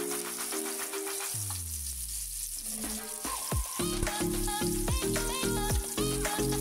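Chopped onion and garlic sizzling in hot oil in a frying pan while stirred with a wooden spatula, with electronic background music and a steady beat over it; the beat comes in about halfway through.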